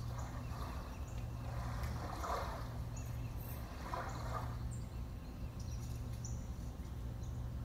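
Room tone of a quiet auditorium: a steady low hum under faint hiss, with two soft muffled rustles about two and four seconds in.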